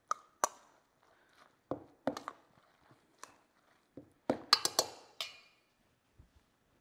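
Metal spoon clinking and scraping against a stainless steel mixing bowl while stirring orzo pasta salad: scattered single clicks, then a quick run of louder ringing knocks about four and a half seconds in as the spoon is set down in the bowl.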